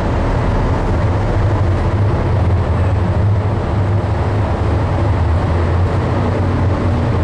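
Loud, steady low drone and hum of a ship's machinery below decks, with no change through the stretch.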